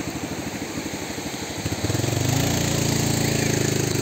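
Yamaha jet ski engine idling with a rapid, even pulse, then throttling up a little under two seconds in to a steady, louder run.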